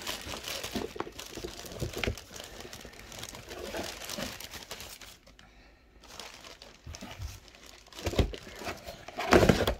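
Clear plastic bag crinkling and rustling as a small cordless chainsaw wrapped in it is handled and pulled out of a cardboard box, with a few louder bumps of handling near the end.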